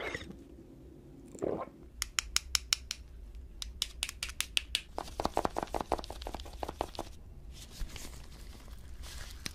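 Cooked lobster shell cracked and snapped apart by gloved hands: runs of sharp, crisp cracks, fastest from about five to seven seconds in, then softer crackling.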